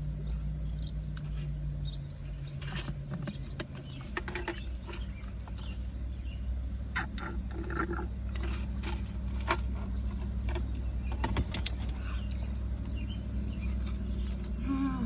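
Eating sounds: chewing, with a utensil clicking and scraping against a food container, over a steady low hum.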